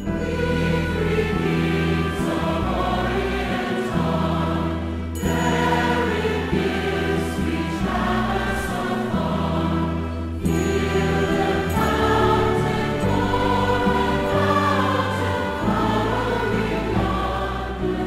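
Background music: a choir singing over sustained low notes, in long phrases with short breaks about five and ten seconds in.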